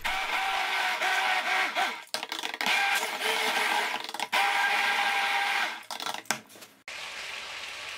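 Immersion blender running in a bowl of tomato sauce, its motor whirring as the blade purées the liquid. It cuts out briefly twice and stops about six seconds in.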